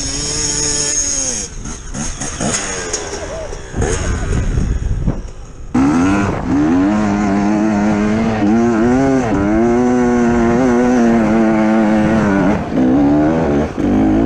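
Enduro dirt bike engine revving up and down under load on a steep dirt hill climb. It fades after about a second and a half, with a quieter, uneven stretch and some clatter. From about six seconds in it comes back loud and keeps revving, rising and falling in pitch, with short dips near the end.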